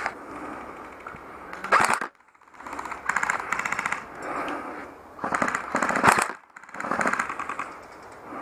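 Airsoft rifle firing several bursts of rapid automatic fire, a fast even rattle of shots.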